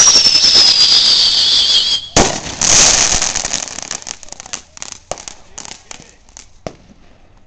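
Ground firework going off: a loud whistle falling steadily in pitch for about two seconds, then a bang, a short burst of hiss and a run of sharp crackling pops that grow sparser and fainter.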